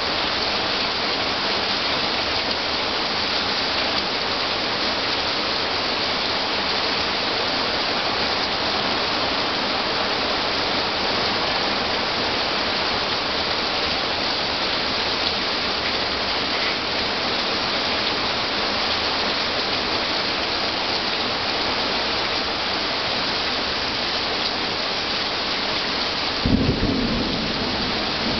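Heavy thunderstorm rain falling in a steady hiss. About two seconds before the end, a sudden clap of thunder breaks in and rumbles on.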